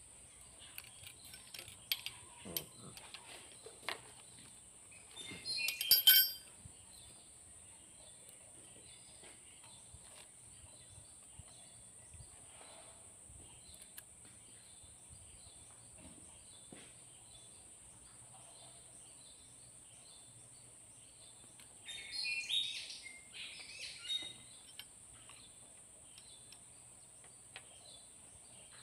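Light metallic clicks and clinks of a ring wrench and screwdriver on the rocker arms and adjusting screws of a six-cylinder diesel head while the valve clearance is set, with one louder ringing clink about six seconds in. A steady faint high hiss underneath, and a short run of high pitched sounds a little over twenty seconds in.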